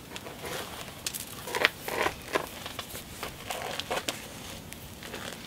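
Hammerstone scraping and tapping on the edge of a cherty mudstone cobble: a string of light stone-on-stone clicks and gritty scrapes, a few sharper strokes among them, as the edge is worked after a crushed platform.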